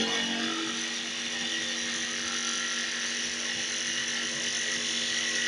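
Electric power tool running steadily at one even pitch.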